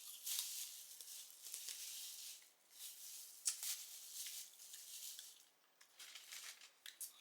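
Faint crackling and rustling with sharp little cracks, from hands working through the shells of a seafood boil.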